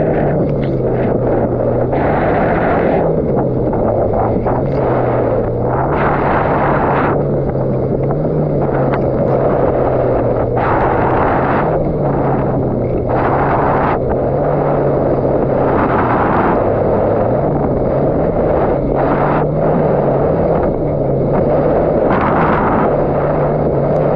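Yamaha GP1800R SVHO WaveRunner's supercharged engine running under way, its note rising and falling a little. Heavy wind buffets the microphone in repeated gusts.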